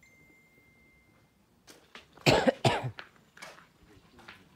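A person coughing: two sharp coughs close together a little over two seconds in, after a quiet start.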